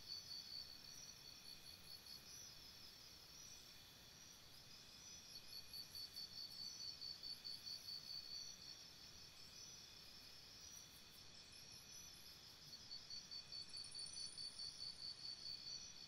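Faint insect chorus, cricket-like: rapid pulsed chirping at about five chirps a second over steady high trills. The chirping swells in trains near the start, from about five to eight seconds in, and again from about thirteen seconds in, and eases in between.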